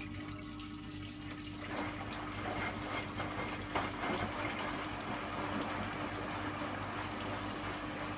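Hoover washing machine taking in water: a steady rush of water into the machine over a low, steady hum. There is one brief knock near the middle.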